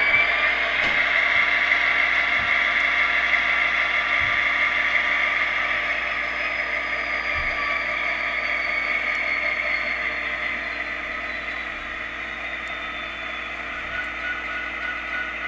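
SoundTraxx Tsunami sound decoder in an HO-scale Athearn Genesis SD70ACE model playing a simulated diesel locomotive engine through its small onboard speaker, with a high whine that slowly falls in pitch as the engine sound eases down.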